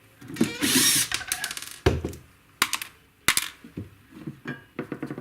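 Tools and parts being handled while the pickup winder's case is taken apart: a short rasping, scraping burst about half a second in, then several sharp clicks and knocks.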